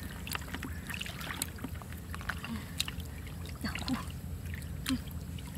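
Hands groping through shallow muddy pond water, with small irregular splashes and wet squelches of mud, over a steady low rumble.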